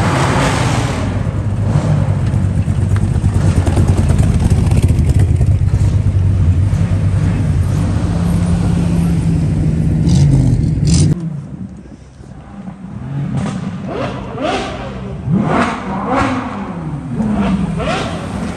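A classic Chevrolet Corvette Stingray's V8 rumbling steadily at low speed. About eleven seconds in it cuts off abruptly, and another car's engine takes over, revving up and down in several short rises and falls as a Bentley Continental GT rolls in over cobblestones.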